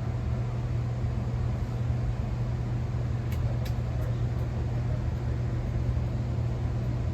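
A 30-inch SMC ceiling fan running on low speed: a steady motor hum with air noise.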